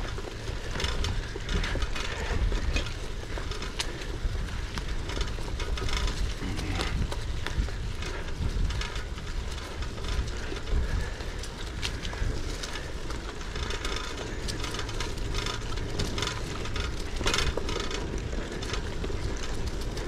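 Trek FX2 hybrid bicycle being ridden on a rough dirt trail: tyres rolling over bumpy ground with frequent short rattles and clicks from the bike, over a steady low rumble.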